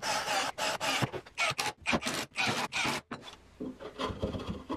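Electric hand drill boring into plywood in several short bursts, its motor whine mixed with the hiss of chips being cut. About three seconds in the drilling stops, and lighter scraping and a few knocks follow as a steel axle rod is shifted in its wooden mount.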